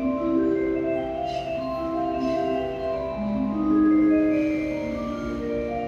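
Station platform approach melody: a mallet-like chime tune of held, overlapping notes, played over the platform speakers as a train pulls in. It is loudest about four seconds in, with a faint low rumble underneath.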